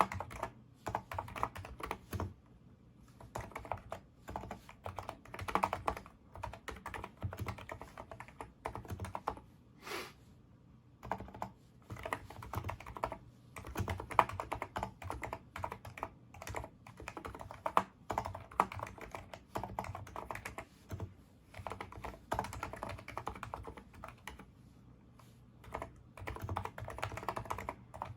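Typing on a NIZ Micro82 electrostatic capacitive keyboard with 35 g switches: fast runs of keystrokes, broken by a few short pauses.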